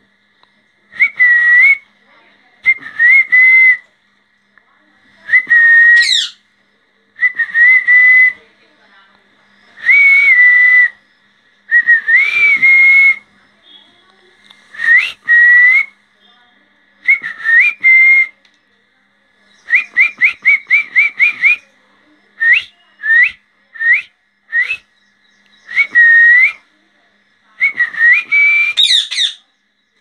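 Whistling: a long series of short whistles on much the same pitch, each with a quick turn up or down, separated by short pauses. About 20 s in they come as a fast run of eight or so short notes, and about 6 s in and again near the end some sweep steeply upward.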